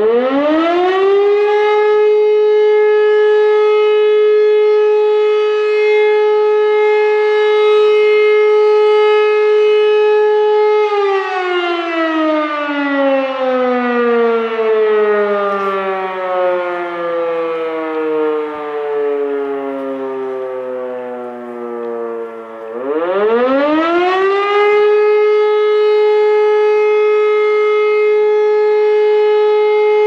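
E57 electro-mechanical siren sounding the German 'Feueralarm' signal. It winds up to a steady tone and holds it for about ten seconds, then winds slowly down for about twelve seconds. About twenty-three seconds in it winds up sharply again and holds the tone once more.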